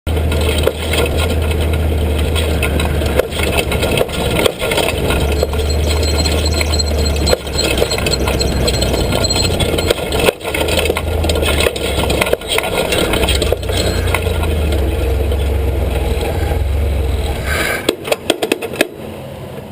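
Ultra4 rock crawler's engine running loud and steady with rattling, cutting back sharply near the end, with a few clicks as it goes quiet.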